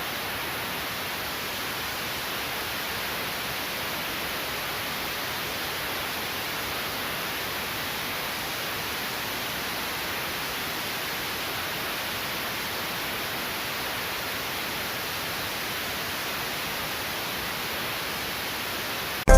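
Steady, unbroken rush of a waterfall, even in level throughout; it cuts off suddenly near the end.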